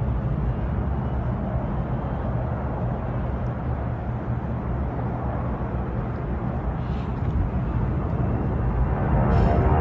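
Boeing C-17 Globemaster's four turbofan jet engines rumbling as the heavy transport flies a low pass, growing louder in the last second or so.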